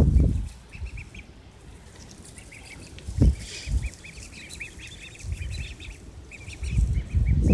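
Five-week-old ducklings peeping, a chorus of short, high calls in quick succession that grows busiest after about three seconds. A low rumble at the start and again near the end, with two brief low thumps around three to four seconds in.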